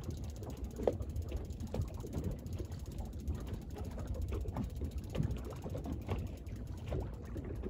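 Fishing reel being cranked with an uneven clicking and ratcheting as a hooked fish is reeled in on a hard-bent rod, over a low steady rumble.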